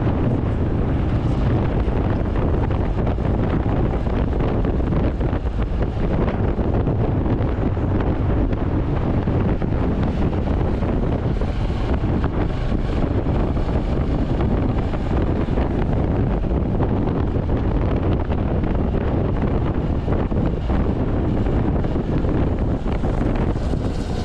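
Royal Enfield Hunter 350's single-cylinder engine and exhaust running steadily at highway cruising speed, heavily mixed with wind buffeting on the microphone.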